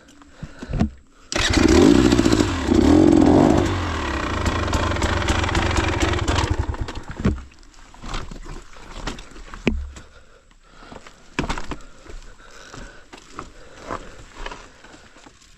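Enduro dirt bike engine bursting in and revving hard twice, then running on for a few seconds before cutting off about seven seconds in. Scattered knocks and scrapes follow.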